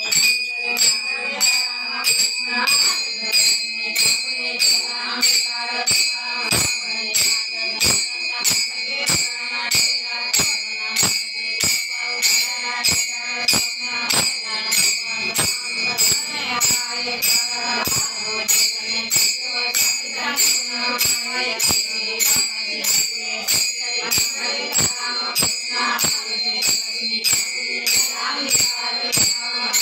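Bhajan devotional music: jingling metal hand percussion keeps a steady beat of about two strokes a second, with singing.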